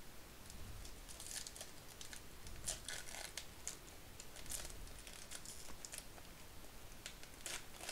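Foil wrapper of a 2023 Topps Series 2 baseball card pack being torn open by hand, crinkling in a string of short, sharp crackles.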